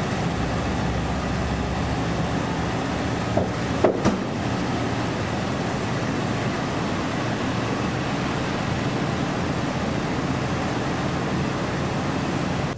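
Steady outdoor rumble and hiss with a low hum, as of a car idling in a wet parking lot. A car door shuts with a single thump about four seconds in.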